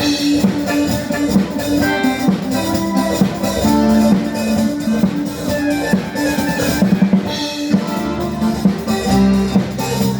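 Loud music with a drum kit beat, kick and snare, under sustained pitched instrument lines, played through a PA sound system during a sound check.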